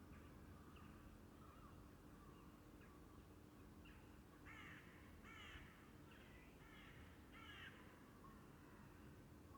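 Faint room tone with a steady low hum, and birds outside an open window. Small birds chirp throughout, and about halfway through another bird gives a run of about five loud, harsh calls.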